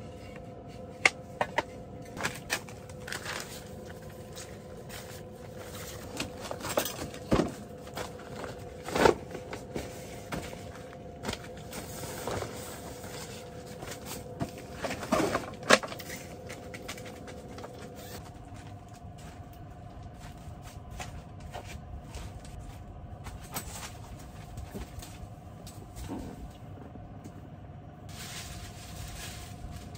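Wooden table slats knocking and clacking as they are handled and fitted together, a dozen or so sharp knocks over the first half, then quieter shuffling and rustling. A steady hum runs underneath.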